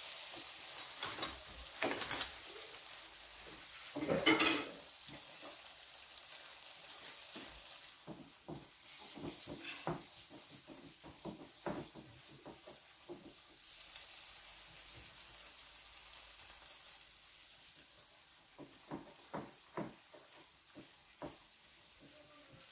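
Salmon fillets frying in butter and garlic in a frying pan, a steady sizzle, with a utensil clicking and scraping against the pan now and then; the loudest scrape comes about four seconds in.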